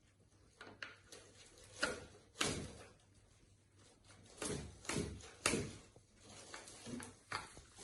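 Knocks and clunks of an artificial Christmas tree stand's leg pieces being handled and pressed into the base, five or so separate knocks.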